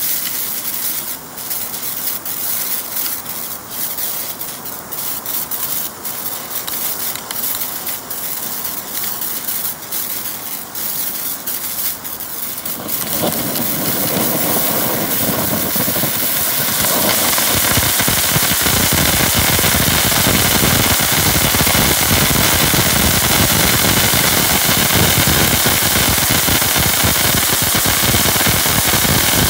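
Black Cat Lost Temple firework fountain spraying sparks: a hiss with scattered sharp crackles. About 13 seconds in it grows louder, and within a few seconds it becomes a dense, continuous crackling hiss.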